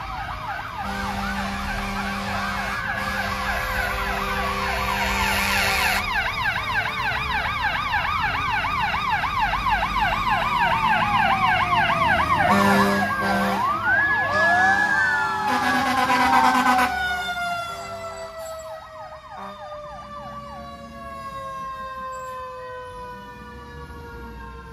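Several fire engine sirens sounding together, mixing a fast yelp with slower rising and falling wails, over steady blasts of a horn. Near the end the yelping stops and the sirens slowly fall in pitch as they wind down.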